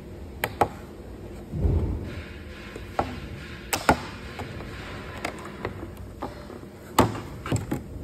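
Sharp clicks and light plastic knocks, scattered a second or more apart, as wire connectors are pulled from a circuit board and the cables are handled. There is a short low rumble about a second and a half in.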